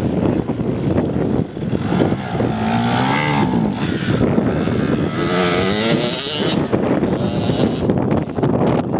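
Wind buffeting the microphone, with a small off-road engine revving up and falling back twice, once a little after two seconds in and again around five seconds in.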